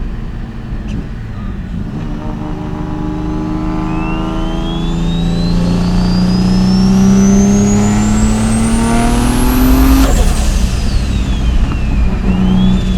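Mitsubishi 3000GT VR4's big-turbo 3.0-litre V6 accelerating hard through a gear. The engine note climbs steadily with a high turbo whine rising over it. About ten seconds in, both drop sharply and the whine falls away.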